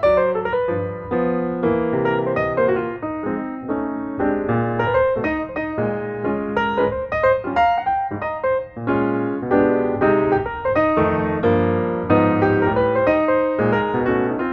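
Background piano music: a quick run of notes with a steady pulse, played over the video.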